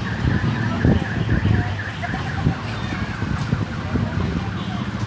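Amusement-park ride train running with a steady low motor hum and scattered rattles. A high warbling, siren-like tone repeats over the first two seconds.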